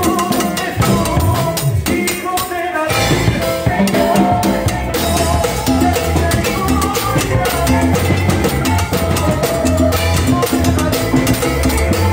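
Live band music from electric bass, electric guitar, keyboard and drum kit, with a short break in the bass and drums about two to three seconds in before the full band comes back in.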